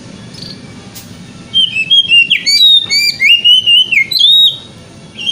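Oriental magpie-robin singing a run of loud, clear whistled phrases that slide up and down in pitch. The song starts about a second and a half in and stops shortly before the end.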